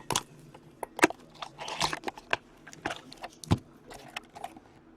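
A box of hockey trading card packs being handled and opened: a run of sharp clicks and taps, loudest about a second in and again past three seconds, with a short rustle of packaging around two seconds in.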